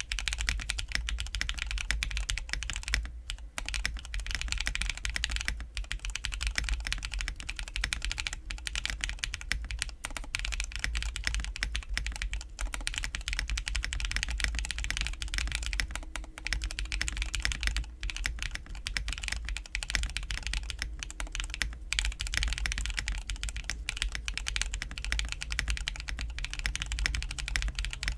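Fast continuous typing on a custom Bakeneko65 mechanical keyboard: a cast aluminum case, o-ring gasket mounted, with Krytox-lubed Zaku switches on an FR4 plate under PBT keycaps. The keystrokes come as a dense clatter with a couple of brief pauses, and the build sounds clacky and high-pitched.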